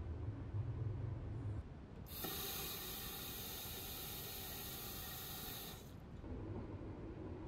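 Bathroom washbasin tap turned on: water from a single-lever faucet runs steadily into the basin for about four seconds, then cuts off. Before it, a low steady hum.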